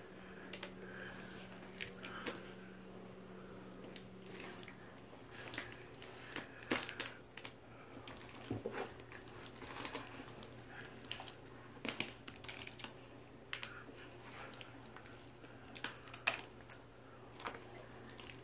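Thick gray slime being handled, giving irregular soft clicks and crackles, over a faint steady hum.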